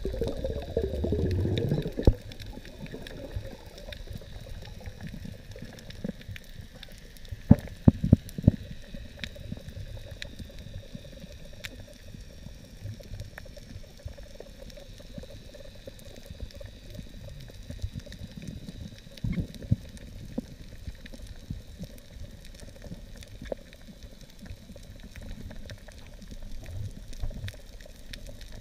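Underwater ambience picked up by a camera in a waterproof housing: a muffled low water rumble with scattered faint clicks and crackles. A louder rush of water fills the first two seconds, and a few sharp knocks come about seven to eight and a half seconds in.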